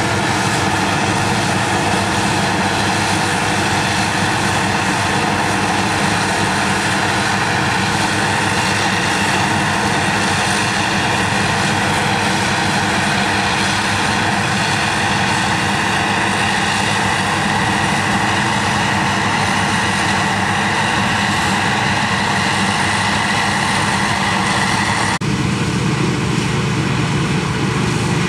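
New Holland FX450 forage harvester running steadily under load, its engine and chopper making a loud, even mechanical noise as it cuts wholecrop and blows it into the trailer. About three seconds before the end the sound changes abruptly, with more low rumble, as the view switches to the machine's header cutting standing wheat.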